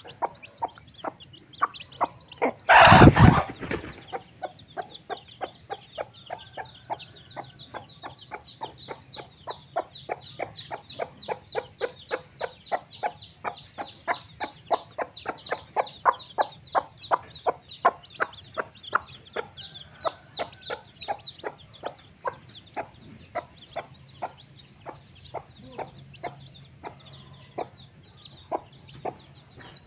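Mother hen clucking in a steady run of short calls while her chicks peep high and thin around her as they feed. A brief loud burst of noise about three seconds in.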